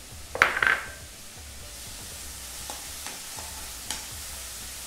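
Chopped tomatoes and onions sizzling in hot oil in a wok while a spatula stirs them, scraping and tapping the pan now and then. About half a second in there is a louder burst of clatter and sizzle.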